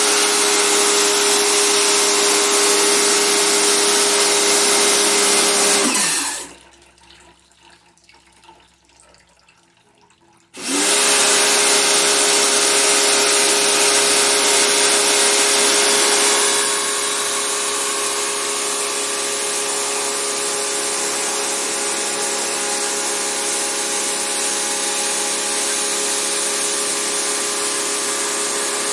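Portable electric pressure washer running, its motor-pump hum and water jet spraying the evaporator coil of a split air conditioner's indoor unit. The pump winds down and stops about six seconds in, then starts again some four seconds later and runs steadily, a little quieter from about sixteen seconds in.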